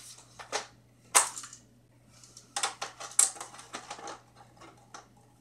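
Plastic airsoft AK-47 being handled: a scatter of sharp plastic clicks and rattles, the loudest about a second in and a quick cluster around three seconds in.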